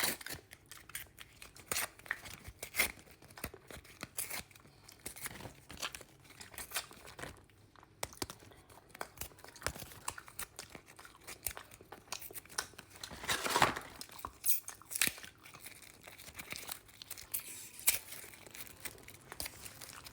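Paratha being torn and chewed close to the microphone: scattered crisp crackles and tearing sounds, with one longer, louder burst about thirteen seconds in.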